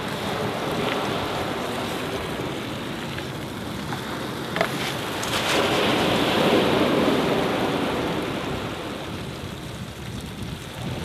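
Beef burger sizzling in an oiled frying pan on a wood-burning stove, with waves washing on a shingle beach that swell up about halfway through and ease off near the end. A single short click comes about four and a half seconds in.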